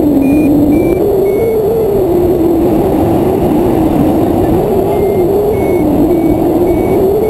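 Air rushing past a hang glider in flight, with a loud wavering tone. Over it a variometer gives short high beeps, two or three a second and shifting in pitch; they stop about a second and a half in and start again about five seconds in. Variometer beeps like these are its climb signal, given when the glider is in rising air.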